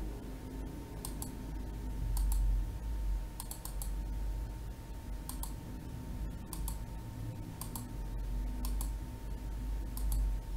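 Light clicks at a computer, mostly in pairs, about once a second, over a low steady hum.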